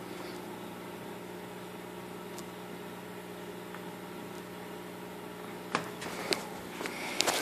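Steady low electric hum of an aquarium pump motor running. Near the end come a few sharp clicks and knocks as the phone filming the tank is handled.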